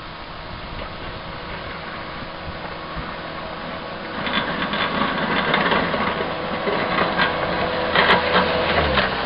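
Caterpillar 257B skid-steer loader's diesel engine running steadily. About four seconds in it gets louder, and a run of rattling clatter comes in over it.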